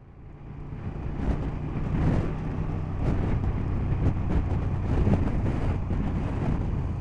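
KTM 1290 Super Duke GT's V-twin engine running on the move, with wind noise on the microphone. It fades up over the first second, and one strand of its steady note drops out about three seconds in.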